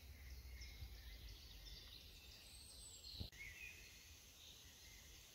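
Faint forest ambience: distant birds singing in short chirps over a low rumble, with one soft knock about three seconds in.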